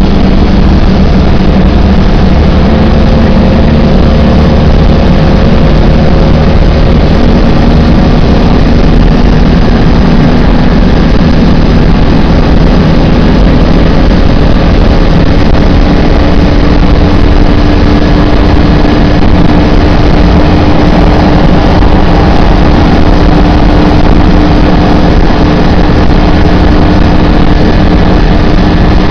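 Citroën Dyane 6's small air-cooled flat-twin engine running loud and flat out at motorway speed, heard from inside the cabin. Its steady drone creeps slowly up in pitch as the car gains speed from about 100 to 130 km/h, near its top speed.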